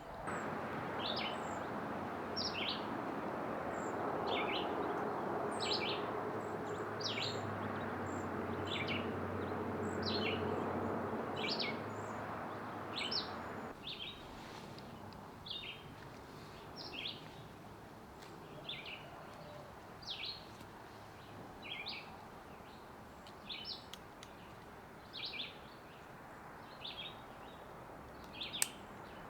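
A bird calling with a short, sharp note repeated about once a second. Under it, for the first half, is a steady rushing noise that cuts off suddenly about halfway through.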